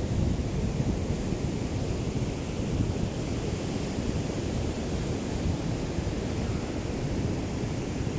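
Small waves of a calm sea lapping on the shore, heard as a steady wash, with a light breeze rumbling on the microphone.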